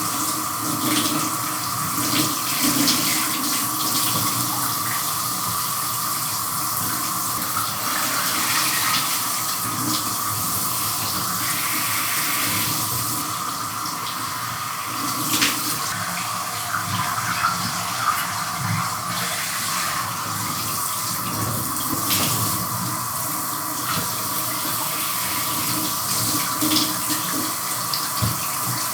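Shower running with someone showering under it: a steady spray of water, broken now and then by short splashes and shifts in the spray.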